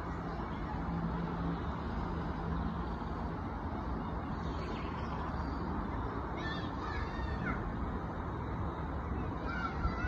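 Steady rushing outdoor background noise with a faint low hum in the first few seconds. A few short bird calls come through around the middle and again near the end.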